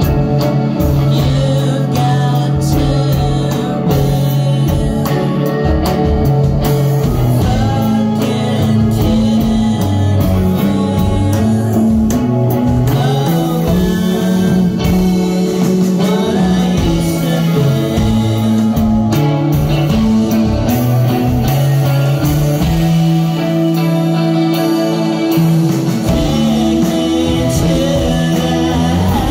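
Live band playing: a singing voice over guitar, with a bass line and drum hits.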